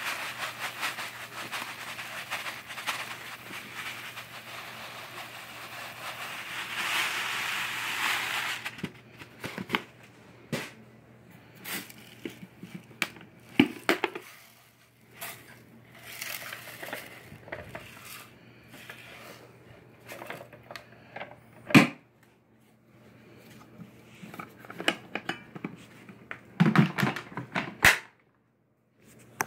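Dry rice pouring from a cardboard box onto shag carpet, a steady grainy hiss for about nine seconds. After that come scattered ticks and rustles of grains and packaging being handled, with a sharp knock about 22 seconds in.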